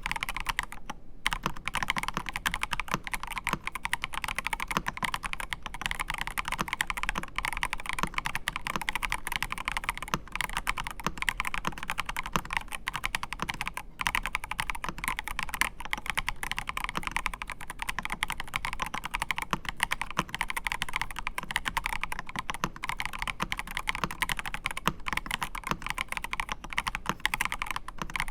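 MelGeek Pixel custom mechanical keyboard being typed on quickly and continuously, a dense run of key clacks with a brief pause about a second in: a typing-sound test of the keyboard's feel.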